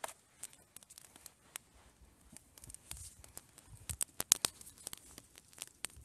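Campfire crackling: irregular small snaps and pops, with a quick cluster of louder ones a little past the middle.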